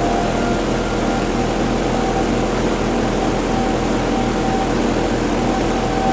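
Distant outdoor warning sirens holding a steady tone that swells and fades every second or two as they rotate, over a steady rushing noise.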